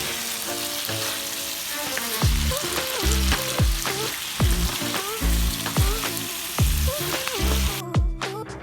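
Stir-fry sizzling in a hot pan as the food is stirred, under background music with a steady bass beat; the sizzle cuts off suddenly near the end, leaving only the music.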